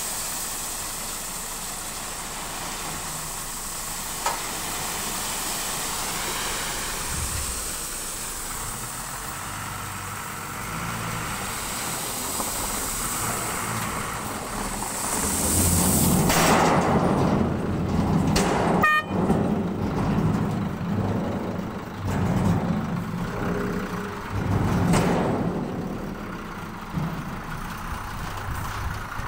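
Diesel tipper truck with its body raised, unloading gravel: a steady hiss of gravel sliding off the tipped body, then the engine runs louder in uneven surges about halfway through as the truck creeps forward to spread the load.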